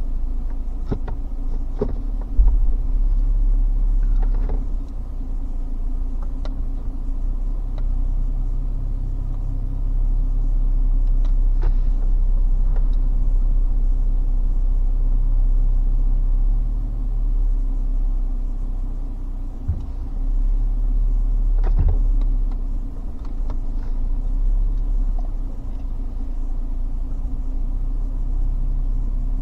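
Car cabin rumble from a car driving along a rough dirt bush track: a steady low engine and tyre rumble with scattered knocks and rattles as it goes over bumps.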